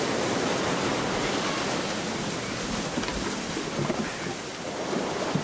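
Ocean surf: a steady rushing wash of waves, a little fuller in the first couple of seconds.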